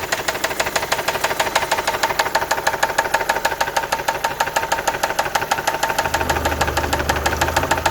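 Opel Zafira engine running with a fast, regular knock, which the owner takes for a worn big-end (connecting rod) bearing. A low steady hum joins about six seconds in.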